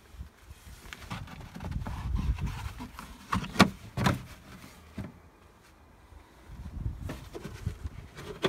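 Handling noise in a car's carpeted boot: low rubbing and rustling, with a few sharp knocks a little past the middle, the loudest about three and a half seconds in.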